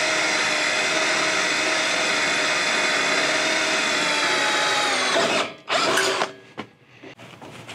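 Cordless drill boring a hole into a tractor's steel frame, its motor whining steadily, the pitch dropping a little just before it stops about five seconds in. A short second burst of the drill follows, then a few light clicks.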